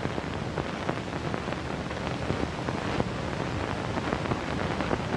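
Steady hiss dense with small crackles and pops, the surface noise of a worn old film soundtrack.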